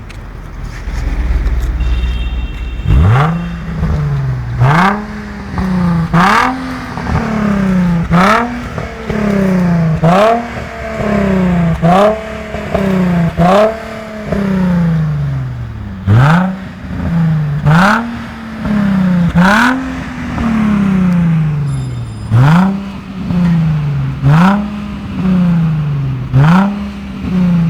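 Nissan 350Z's 3.5-litre V6 through a stainless steel valved aftermarket catback exhaust, idling at first, then free-revved over and over: over a dozen quick blips, each rising sharply and falling back more slowly, about every one and a half to two seconds.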